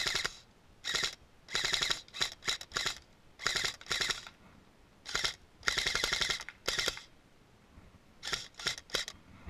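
Airsoft AK firing on full auto in about a dozen bursts of rapid shots. Some bursts are very short and some last nearly a second, with short pauses between them.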